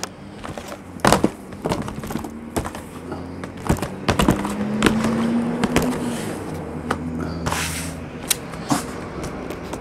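Boxes of trading cards being handled on a tabletop: picked up, stacked and set down, giving a run of irregular knocks, taps and scrapes over a steady low hum.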